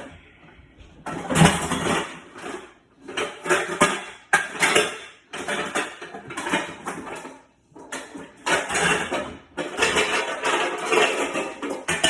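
Pots and pans clattering and scraping in repeated bursts of about a second each while a wok is dug out from the cookware.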